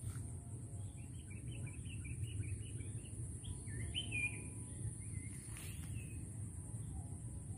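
A bird calling in a quick run of short chirps, with one louder call about four seconds in, over a steady low rumble.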